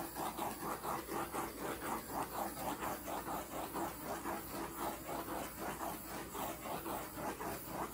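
Handheld torch flame hissing as it is passed over wet acrylic pour paint, with an even pulsing about three times a second.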